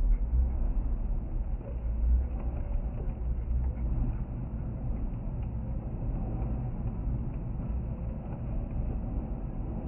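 Car's engine and tyres heard from inside the cabin as it pulls away and gathers speed on a snow-covered road: a steady low rumble.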